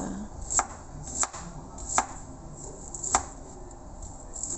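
Kitchen knife slicing a shallot on a wooden cutting board: about five separate cuts, each a sharp knock of the blade on the board, coming slowly and unevenly.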